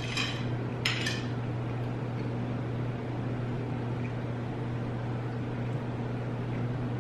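Steady low hum of a quiet room, with two short scrapes in the first second or so.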